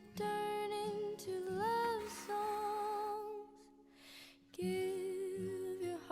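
Background music: a slow song with a singer holding long, wavering notes, with a brief lull a little past the middle.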